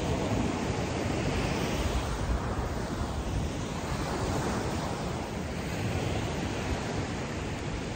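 Ocean waves washing on a beach in a steady, swelling hiss, with wind on the microphone.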